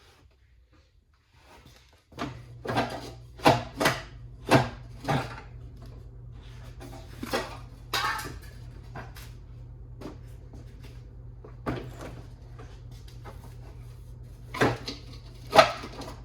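Irregular knocks and clatters of tools on a stuck part of a two-stroke sled engine as it is worked loose, over a steady low hum that starts about two seconds in.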